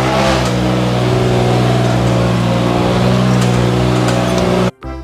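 A car engine running steadily and loud, which cuts off abruptly near the end.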